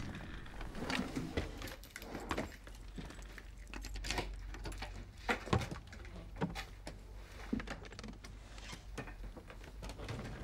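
A desk drawer being opened and revolvers handled inside it: a scattered run of small clicks, knocks and metal clinks. The sharpest knocks come about five and a half seconds in.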